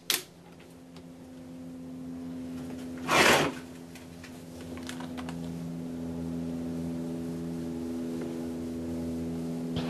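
Mosin-Nagant rifle being handled at the bench: a sharp click of the bolt at the start, then a brief loud rustle of a plastic bag about three seconds in, over a steady low hum.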